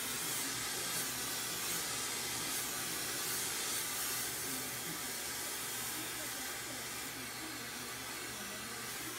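Hand-held glassworking torch hissing steadily as its flame heats clear glass, easing slightly in level about seven seconds in.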